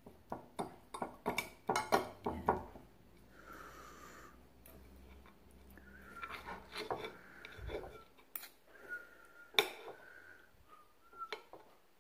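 Spoon and fork clinking and scraping against a plate while eating. There is a quick run of clinks in the first couple of seconds, then scattered single clinks.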